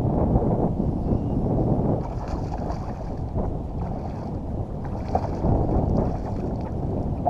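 Low, steady rumbling wind noise on the microphone, with a few faint knocks.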